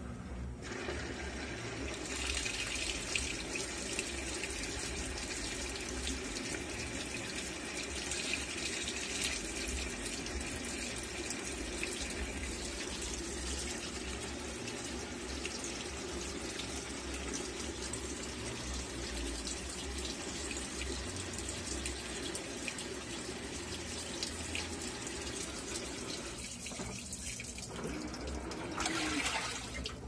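LG Sapience 18 kg top-load washing machine filling: water pours steadily from the inlet into the drum onto soapy towels. The pour dips briefly near the end.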